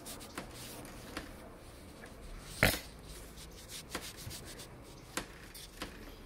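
A few scattered light clicks and taps from handling, with one sharper click about two and a half seconds in.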